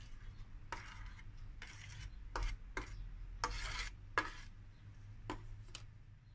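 Wheat flour being poured from a container into a glass measuring jug. It comes out in about eight short, soft rushes spread over six seconds.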